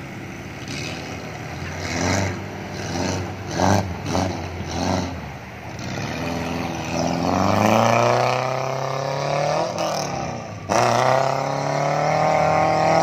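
Small 4x4 jeep engine revving under load as it drives through river water. There are a few short surges in the first seconds. Then the pitch climbs steadily for about three seconds, dips suddenly, and climbs again to the end.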